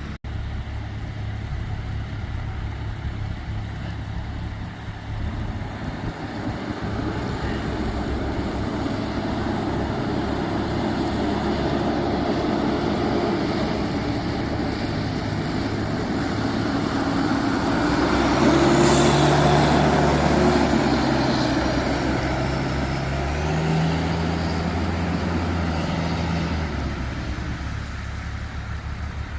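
Fire truck's diesel engine running, growing louder to a peak about two-thirds of the way through and then easing off. Its note steps up and down several times near the end, with a brief air-brake hiss at the loudest point.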